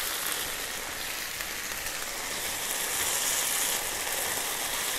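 Chicken breast sizzling in a frying pan, a steady crackling hiss that swells a little about three seconds in. The heat has just been turned off, and the pan's leftover heat keeps the chicken frying.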